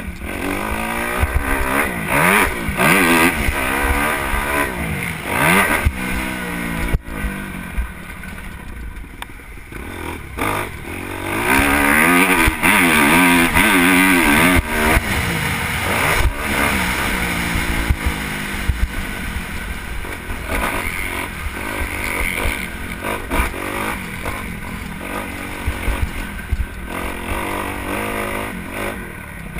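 Motocross dirt bike engine revving hard and falling back again and again as it accelerates and shifts, loudest about twelve to fifteen seconds in.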